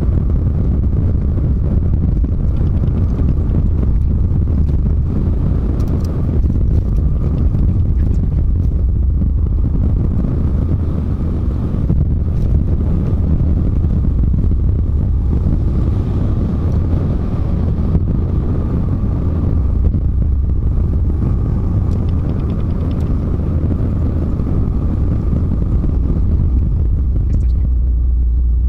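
Steady low rumble of a Volvo semi-truck's engine and road noise, heard from inside the cab while driving, with a faint steady hum and no change in pace.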